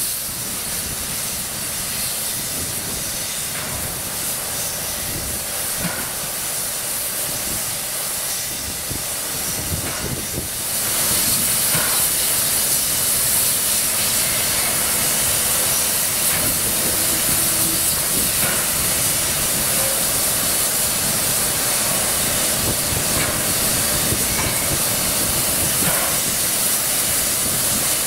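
Steam hissing steadily from the standing steam locomotive 3801, a C38 class 4-6-2 Pacific, escaping around its front cylinders and from above the boiler. About eleven seconds in, the hiss gets louder and brighter and then holds steady.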